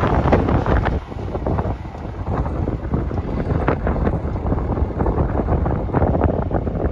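Wind buffeting the microphone over the low rumble of a train passing through the station, loudest in the first second.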